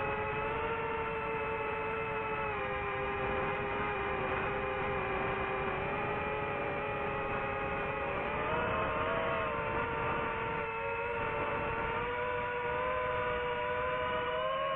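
DJI FPV drone's motors and propellers whining steadily in flight, with a noisy rush underneath; the pitch rises a little about eight and a half seconds in.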